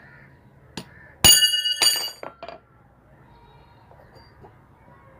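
Metal tools striking the washing machine motor's metal parts while working its bearing off: a small click, then two sharp ringing metallic strikes about a second in, followed by a few lighter knocks.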